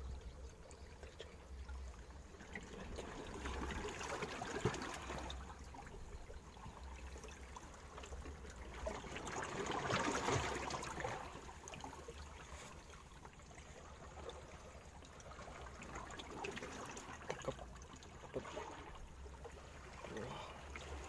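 Seawater sloshing and trickling among coral rocks in a shallow rock pool, swelling louder about four seconds in and again around ten seconds as the water surges in.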